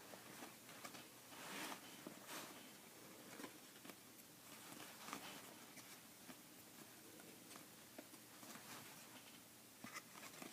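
Faint rustling and soft clicks of trading cards being handled and slid past one another.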